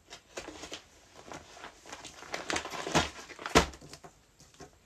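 Clear plastic clothing packets crinkling as they are handled and stacked on a table, with two sharper slaps a little past halfway as packets are set down on the pile.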